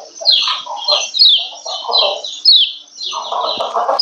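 Female kecial kuning (lemon-bellied white-eye) giving its 'ciak ciak' calls: quick runs of short, high notes that each drop in pitch, with a lower chattering underneath. This is the female call used to rouse males into breeding song.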